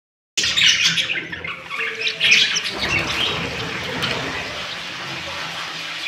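Budgerigars chirping in the cage, with sharp, busy calls in the first three seconds and then a steadier chatter.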